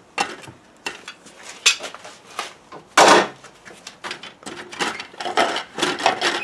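Handling clatter at a plantation shutter: a run of clicks and knocks, with one louder clatter about three seconds in.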